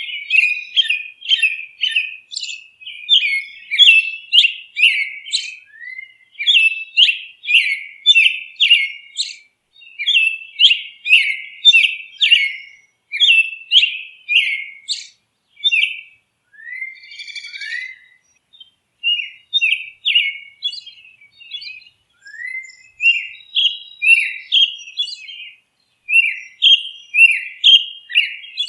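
Birds chirping: a quick, busy run of short high chirps and twitters, several a second, thinning out briefly in the middle.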